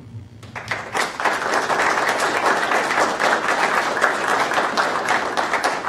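Audience applauding: scattered claps just after the start build within about a second into steady clapping, which thins out near the end.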